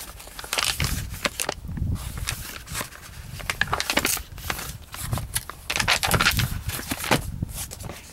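Paper pages of a car owner's manual rustling and flapping as they are leafed through by hand, an irregular run of short rustles and soft taps.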